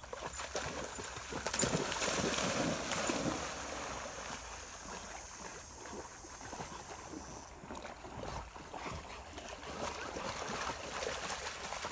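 An Irish Setter splashing into a fast-flowing creek, loudest about two seconds in, then swimming and wading through the water.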